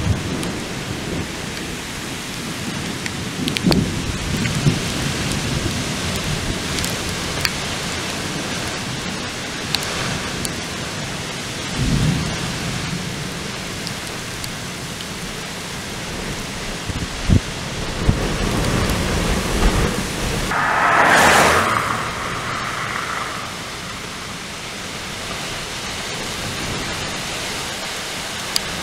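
Strong thunderstorm squall-line wind rushing through trees and standing corn, buffeting the microphone with short low thumps every few seconds. A louder rushing swell comes about two-thirds of the way through.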